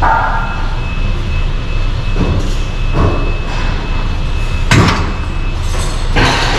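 Cable machine weight stack knocking during single-arm pulldown reps, with a few irregular knocks and clanks, the loudest near the end. A steady low rumble runs underneath.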